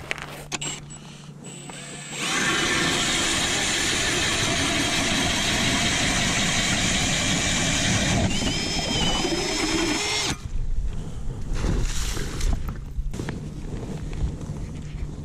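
Milwaukee M18 Fuel cordless ice auger drilling into lake ice, running steadily for about eight seconds; its whine rises shortly before it stops abruptly about ten seconds in. A few knocks follow.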